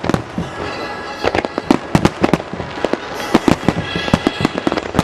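Aerial fireworks shells bursting in rapid succession during a festival's opening barrage: many sharp, overlapping bangs, several a second.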